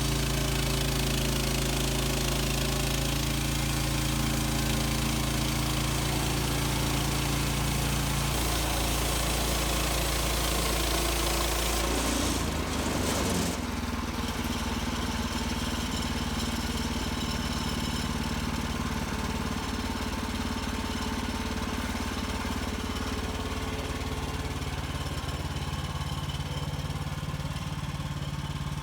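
Gasoline engine of a Woodland Mills HM130 Max portable bandsaw sawmill running steadily. About twelve seconds in, its note drops to a lower steady pitch.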